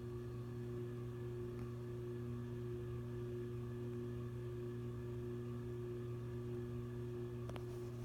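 Dayton 3C691 56-inch three-speed commercial ceiling fan's cast-aluminum motor running with a steady hum of several stacked tones. There is a light click near the end.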